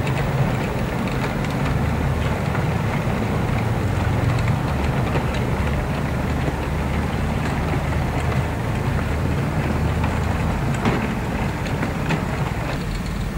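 Model freight train rolling along layout track: a steady rumble of wagon wheels on the rails, with a few sharp clicks near the end.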